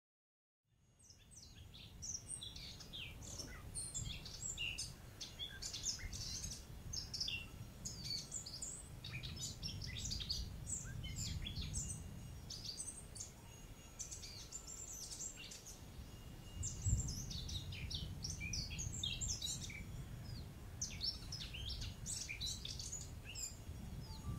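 A chorus of small birds chirping and singing, many short calls overlapping, over a steady low rumble. It fades in just after the start.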